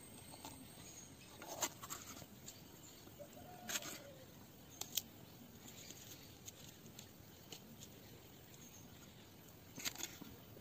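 Kitchen knife cutting through a green capsicum (bell pepper): a few faint crisp cuts and knife taps on a wooden board, spaced irregularly, over a quiet background.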